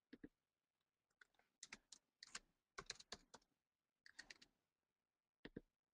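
Faint typing on a computer keyboard: several short runs of keystrokes with pauses between them.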